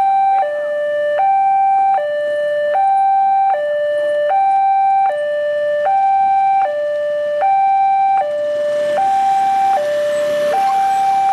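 Railway level-crossing warning alarm sounding a steady two-tone signal, a higher and a lower tone swapping about every 0.8 seconds, as the crossing closes for an approaching train. A rising rush of noise builds under it near the end.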